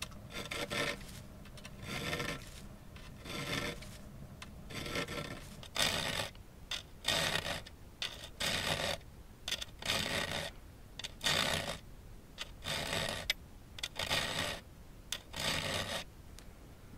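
Small triangle file stroking across the steel teeth of a 21-inch Bahco peg-tooth bow saw blade, sharpening the bevels of dull, rounded-over teeth. The filing strokes repeat a little more than once a second, grow louder about six seconds in, and stop shortly before the end.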